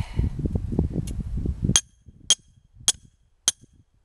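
A hammer driving a metal trap stake into the ground: about four sharp, ringing metallic blows, evenly paced at roughly two a second, starting a little under two seconds in. Before them there is low rustling and handling noise.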